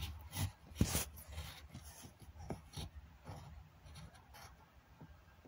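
Handling noise: a phone's microphone rubbing and scraping against fabric, with irregular scratchy strokes and a few sharp clicks, the loudest about a second in.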